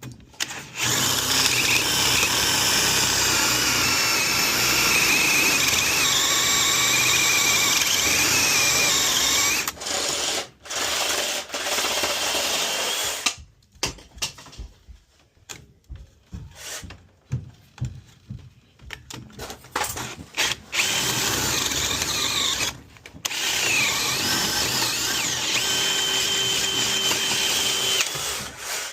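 A handheld power tool running with a motor whine. It runs in one long stretch, then in short stop-start bursts, then in another long stretch.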